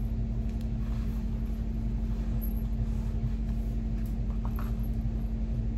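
A steady low mechanical hum: one constant drone over a deep rumble that holds an even level throughout.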